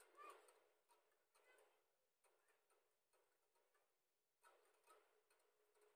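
Faint, irregular ticking of a stainless wire balloon whisk against the side of a bowl while beating a liquid egg-and-milk custard mixture, about one or two ticks a second.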